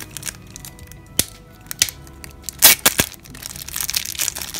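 Thin clear plastic bag crinkling and rustling as fingers pull it open off an earbuds charging case, with irregular crackles and a louder rustle about two and a half seconds in.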